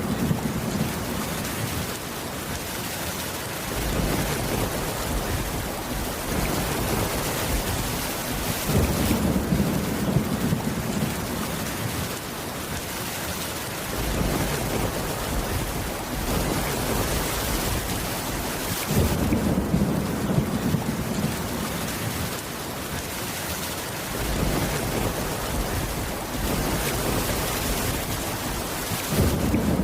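Steady rain with low rumbles of thunder that swell up about every five seconds.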